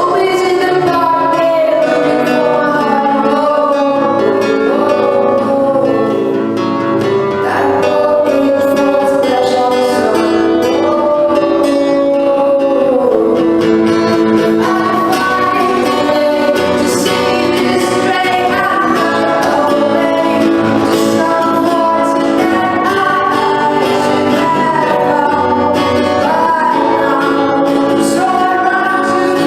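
A solo singer accompanying themself on guitar, singing a sustained melody over strummed chords.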